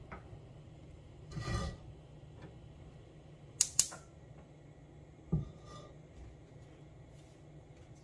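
A frying pan handled on a gas stove's metal grate: a soft scrape about a second and a half in, two quick clinks a couple of seconds later, then a low knock, over a faint steady low hum.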